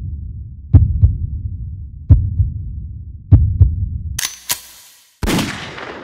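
Heartbeat sound effect: deep double thumps about every 1.3 seconds over a low rumble. About four seconds in it stops; two sharp clicks follow, then a gunshot with a long fading tail.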